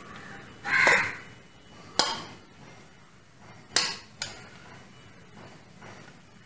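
Metal spoon clinking against a cooking pot while cooked rice is spread in layers: a short rasping sound about a second in, then three sharp clinks, one about two seconds in and two close together near four seconds.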